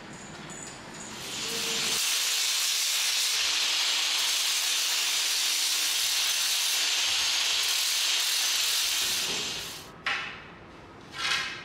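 Angle grinder sanding along a wooden spear shaft: a steady hiss that builds about a second in, holds for some seven seconds and fades away. Two short rustling sounds follow near the end.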